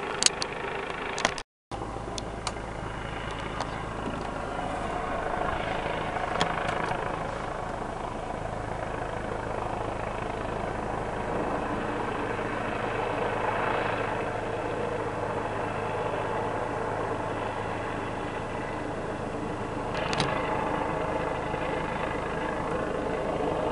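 Helicopter hovering at a distance, a steady drone of engine and rotor with a constant pitch. A few clicks near the start and a brief cut-out a second and a half in.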